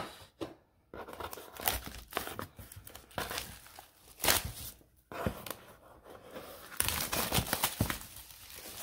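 Plastic shrink wrap on a trading-card box being torn and crinkled open by hand, in irregular rustling bursts with short pauses.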